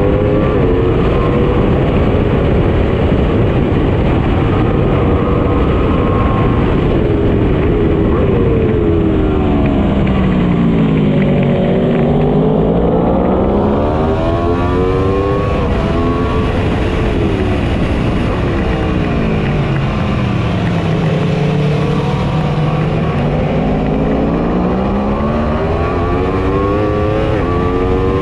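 Motorcycle engine at speed, with heavy wind noise. Its pitch sinks twice as the bike slows for corners and climbs again as it accelerates out.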